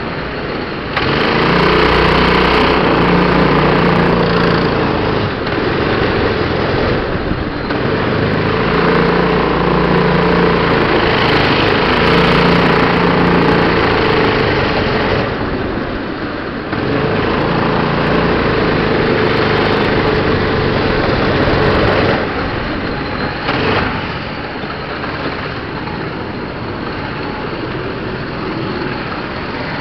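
Go-kart engine heard from on board the kart, revving hard for a few seconds at a time and dropping back in between as the throttle opens and closes, three times. It settles into a quieter, steadier run over the last several seconds.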